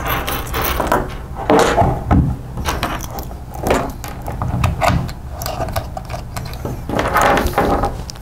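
Cables and plug connectors being handled and pushed into a small metal IoT gateway box: an irregular run of clicks, knocks and cable rattles.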